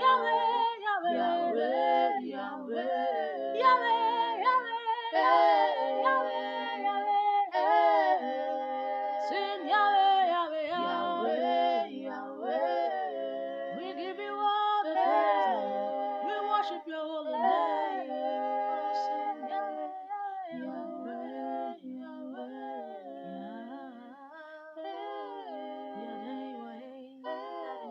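A cappella vocal harmony: one woman's voice overdubbed in several parts, singing sustained wordless or hummed chords that gradually fade toward the end.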